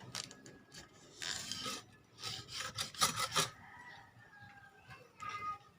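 Suspension fork parts scraping and rubbing in several short bursts as the long preload spring is fed back into the fork leg.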